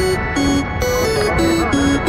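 Electronic dance music with a fast, steady beat and a melody of short held notes.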